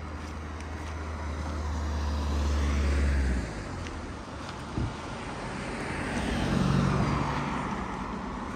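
Motor vehicle engine noise passing by. A low rumble swells and cuts off about three and a half seconds in, then a second engine sound swells and fades near the end.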